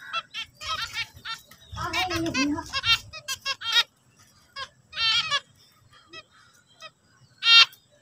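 Zebra finches calling and singing: a quick run of short calls, several birds overlapping, for about four seconds, then a few scattered calls and one loud call near the end.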